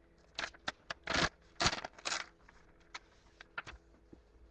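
A sheet of lined paper being handled and shifted on a wooden desk: a string of short rustles and scratches with a few sharp clicks, most of them in the first two seconds and a few more around three and a half seconds in.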